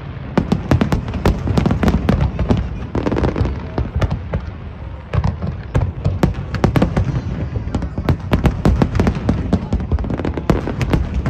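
Aerial firework shells bursting in a rapid, overlapping barrage: many sharp cracks and bangs, several a second, over a steady low rumble.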